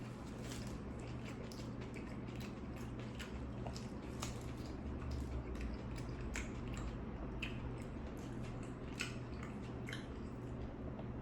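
Close-up mouth sounds of a person biting and chewing a Subway tuna sandwich with lettuce and pickles: irregular crunches and smacks over a steady low hum.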